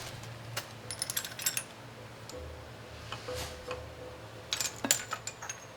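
Small metal hardware and tools clinking and tapping as a power feed motor is bolted onto a milling machine table. The clicks come in short clusters, one about a second in and another near the end.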